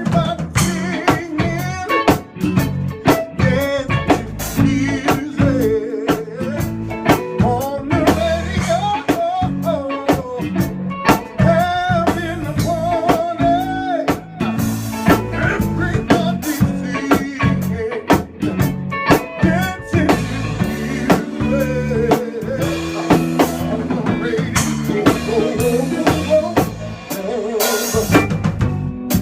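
A band playing: a drum kit keeping a steady beat under a wavering melodic line, in a rehearsal.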